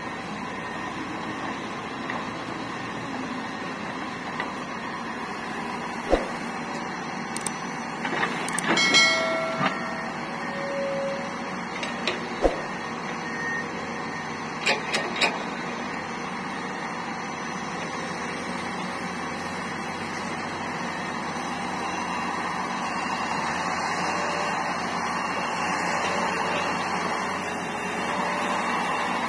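Hitachi 470LC hydraulic excavator running steadily as it digs and swings. Sharp metallic clanks come a little after six seconds, near twelve and near fifteen seconds, and a louder clatter with a brief ringing screech around nine seconds. The machine sound grows slightly louder in the last third.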